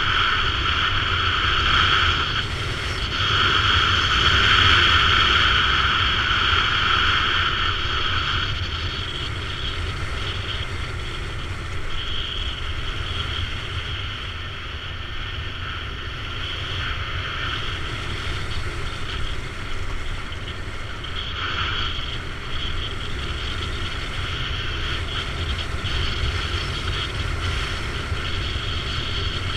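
BMW F650 GS dual-sport motorcycle riding along, its engine running steadily with wind noise on the microphone; it gets louder for a few seconds near the start, then eases off.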